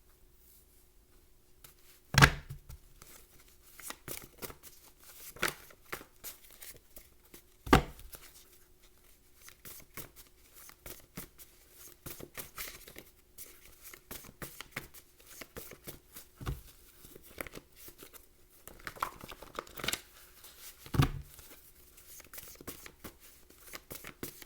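Tarot cards being handled and shuffled by hand: scattered light clicks and rustles, with a few sharper knocks about 2, 8, 16 and 21 seconds in as cards are tapped or laid down.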